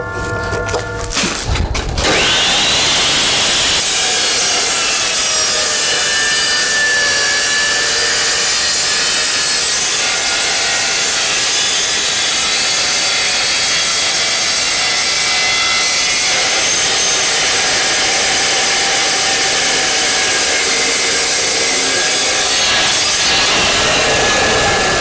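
Evolution Rage 2 chop saw with a carbide-tipped blade cutting through steel: a loud, steady cutting noise that starts about two seconds in, with a brief rising whine as it starts, then runs on without a break.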